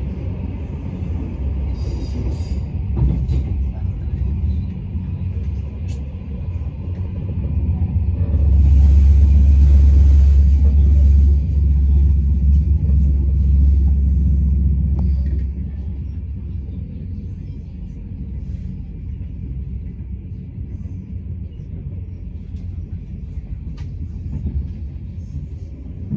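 Passenger train running along the line, a steady low rumble heard from inside the carriage, swelling louder and hissier for several seconds about a third of the way in before settling back.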